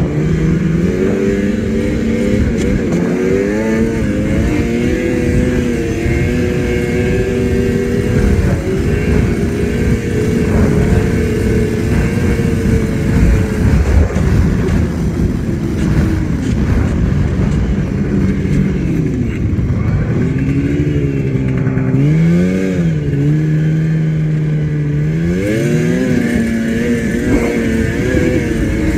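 Yamaha snowmobile engine running under way, its pitch rising and falling with the throttle over a steady rush of noise. The engine eases off about twenty seconds in and again a few seconds later, climbing back each time.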